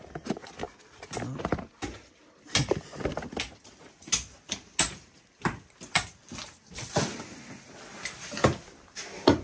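Many short, sharp clicks and knocks at an irregular pace, about twenty of them, the loudest near the end.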